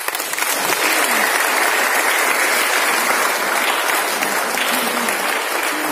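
Audience applause, swelling from a few separate claps into full clapping within the first second and holding steady, with a few voices faintly audible through it near the end.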